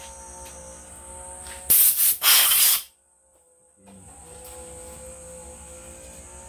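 Two short, loud bursts of hissing spray from a pressurised nozzle, together about a second long, cutting off sharply, over a faint steady hum of tones.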